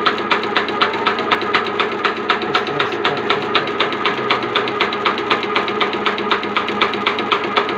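A machine running with a rapid, even ticking, about six ticks a second, over a steady hum. The ticking is the friction noise that the uploader says should be shown to a mechanic.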